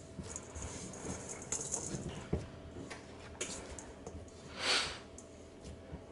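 Hands kneading and squeezing sticky scone dough with dried fruit in a stainless steel mixing bowl: faint squishing and rustling with small scattered ticks against the metal. A short, louder hiss about three-quarters of the way through.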